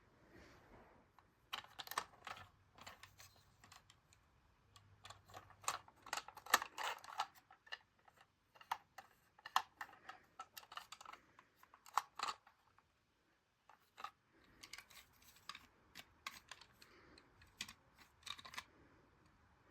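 Model train set and its packaging being handled by hand: irregular clicks, taps and light rustling, with a short pause about two-thirds of the way through.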